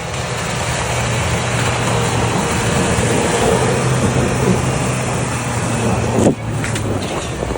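Ford Bronco driving through deep snow drifts: a steady low engine hum under a loud rushing noise that builds, then drops off sharply about six seconds in.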